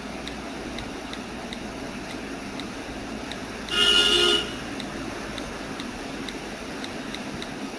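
iPad on-screen keyboard clicking faintly as an email address is typed, about three clicks a second. Roughly halfway through comes a loud, short horn-like toot of well under a second.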